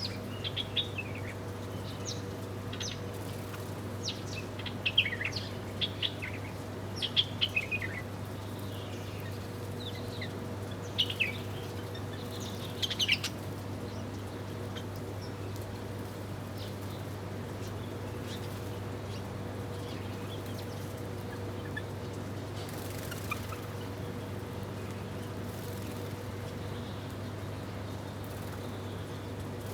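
Small birds chirping in quick, sharp bursts for the first dozen seconds or so, then only an occasional chirp, over a steady low hum.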